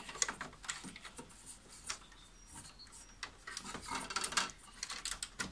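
Hands handling a plastic cable connector (the fuser electrode lead) inside a laser printer: scattered small clicks and rubbing of plastic, with a busier run of handling noise about four seconds in as it is pushed into place.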